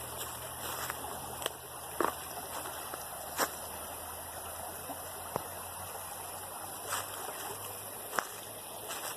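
A stream running steadily, with a few scattered sharp clicks over the water noise.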